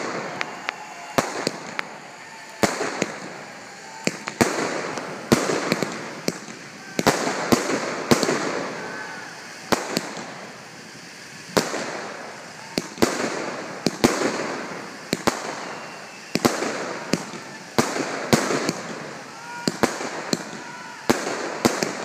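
Aerial fireworks bursting in quick succession, a sharp bang roughly every second, each followed by a fading hiss.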